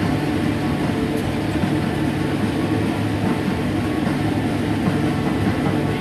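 Combine harvester running steadily while harvesting dry standing corn, its engine and threshing machinery giving a constant, even noise with a low hum.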